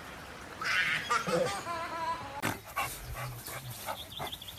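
A dog whining and yipping in short high-pitched calls, followed by a few soft thumps.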